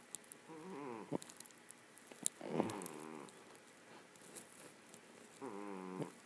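A cat snoring: three drawn-out snores about two and a half seconds apart, each a pitched tone that falls.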